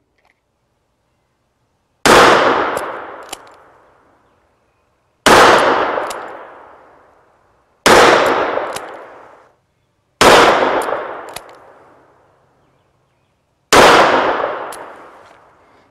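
Taurus Judge five-shot revolver firing five .45 Long Colt rounds, one at a time a few seconds apart. Each shot is loud and is followed by an echo that dies away over about two seconds.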